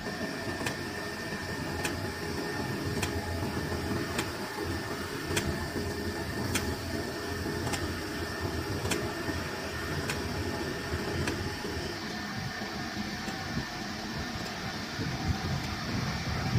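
Horizontal ribbon blender running, its ribbon agitator churning a load of powder in the trough, with a steady machine rumble and hum. A light tick repeats a little more than once a second and fades out after about eleven seconds.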